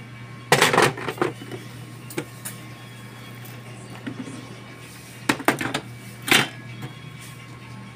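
Plastic housing of a digital price-computing scale being fitted back onto its base and handled: clattering knocks and rattles about half a second in, and again from about five to six and a half seconds in, over a steady low hum.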